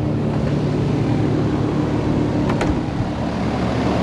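Steady mechanical hum from running machinery, with two faint clicks about two and a half seconds in.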